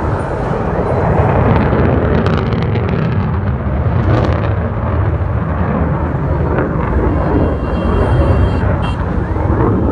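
F-16 fighter jet's single turbofan engine heard from the ground as the jet flies a display, a loud, steady rumble.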